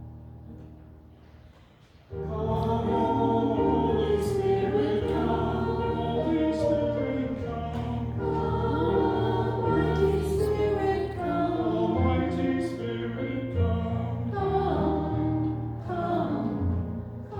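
Church music: an instrumental chord fades out, then about two seconds in a hymn starts with group singing over steady bass notes.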